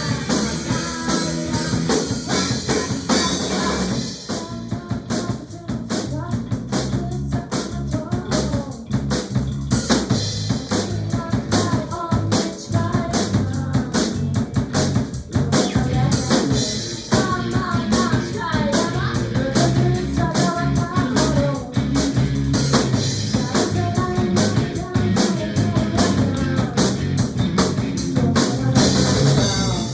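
Music with a driving drum kit beat (kick, snare and rimshots) and a melodic line, likely a song with vocals.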